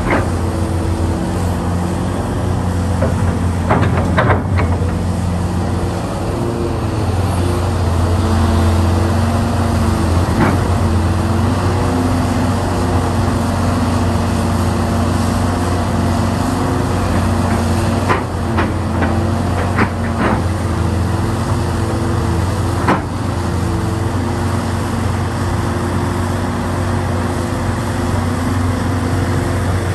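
Hitachi Zaxis 670 excavator's diesel engine running steadily under hydraulic load, its tone shifting as the boom and bucket work. Sharp knocks from the bucket working the rock come twice about four seconds in, once near the middle, and in a quick cluster about two-thirds through.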